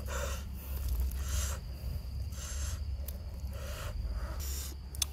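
Close-up eating noises of a man eating grilled fish by hand: chewing and breathing through the nose in short bursts about once a second.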